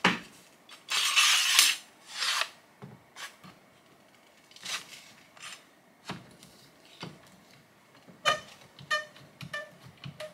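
DeWalt plastic trigger clamps being worked on a steel bar: two sliding scrapes in the first couple of seconds, then a series of separate clicks and knocks. Near the end some clicks carry a short metallic ring.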